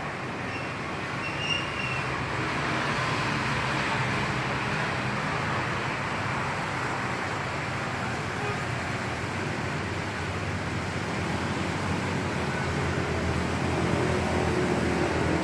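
Steady background rumble and hiss, with a low engine-like hum underneath, and a short high chirp about a second and a half in.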